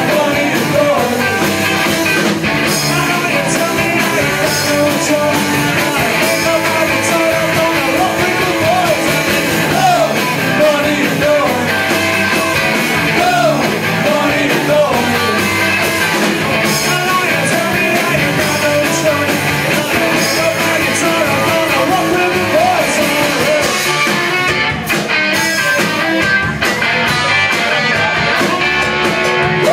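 A small rock band playing live: electric guitars and a drum kit, with a man singing lead vocals.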